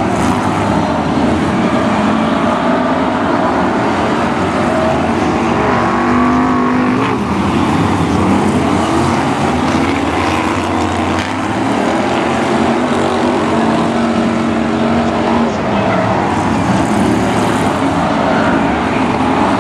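Several BriSCA F1 stock cars' V8 engines racing together, loud and continuous, their pitch rising and falling as they accelerate and back off around the oval.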